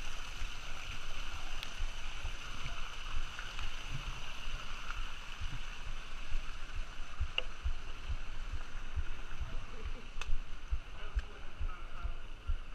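Water around a kayak on the river: a steady rushing hiss of moving water with frequent irregular low thumps and knocks.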